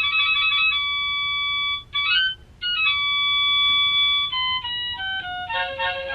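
Graco Everyway Soother baby swing's built-in lullaby playing through its small speaker: a simple electronic tune of plain, high notes, held and stepping, with a brief break about two and a half seconds in and a busier run of quicker notes near the end.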